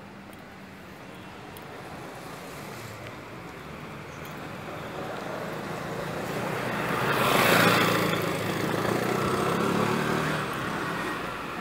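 Road traffic: a car's engine and tyre noise building up to a peak about seven or eight seconds in, then easing off, over a steady low engine hum.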